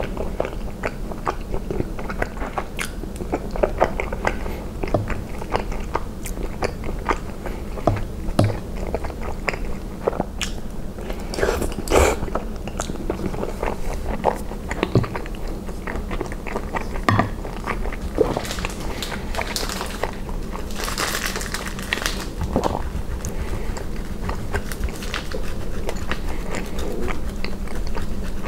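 Close-miked chewing and biting of soft cheese and spinach ravioli in tomato sauce: a long string of small, sharp, wet mouth clicks and bites.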